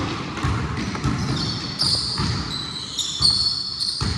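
A basketball being dribbled on a court, giving repeated thumps about twice a second. Short high squeaks, typical of sneakers on the court, come in over roughly the second half.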